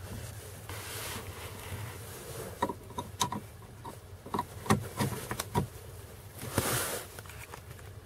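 Plastic clicks and knocks of a small Veepeak WiFi OBD2 adapter being handled and pushed into the car's OBD-II diagnostic port: a cluster of sharp clicks over about three seconds, followed by a short rushing scrape near the end.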